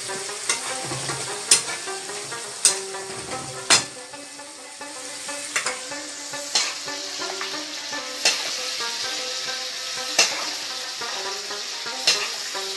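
Pieces of lamb sizzling as they fry in a frying pan, with a spatula stirring and knocking against the pan about every one to two seconds.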